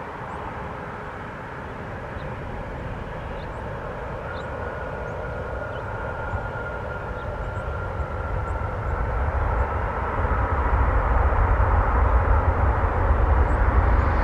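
Twin-engine jet airliner landing and rolling out on the runway: a steady jet rumble that grows steadily louder, with a thin high engine whine from a few seconds in that drifts slowly lower.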